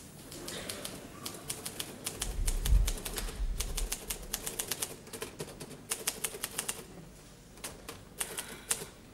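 Typewriter being typed on: fast, uneven key strikes with short pauses between runs. A low thump about two and a half seconds in is the loudest sound.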